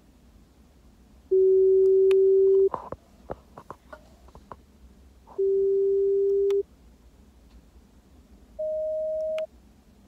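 Three steady pure-tone hearing-test beeps of about a second each: two at the same low pitch, the second softer, then a shorter, higher and softer one near the end.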